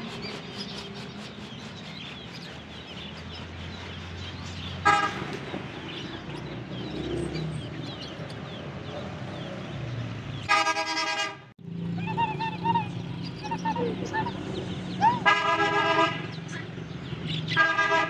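Vehicle horns honking several times: a short toot about five seconds in, a longer blast around the middle, and two more toots in the second half, over a steady street hum and the chirping of caged birds.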